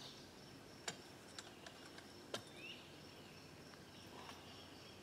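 Faint woodland ambience: a steady high drone of insects, broken by two sharp ticks, about one second and two and a half seconds in.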